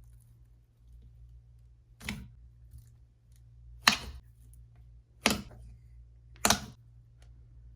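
Slime being pressed and squished by hand: four short, sharp squishes, roughly a second and a half apart.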